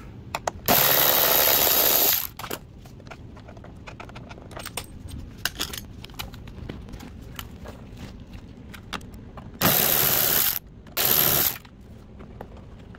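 Milwaukee cordless electric ratchet on a long extension, run in three bursts to back out headlight mounting bolts: one run of about a second and a half early on, then two short runs near the end. Light clicks of handling come in between.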